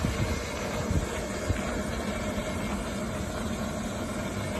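Mitsubishi Fuso Super Great dump truck's 8DC11 V8 diesel running steadily, with a few short knocks in the first second and a half.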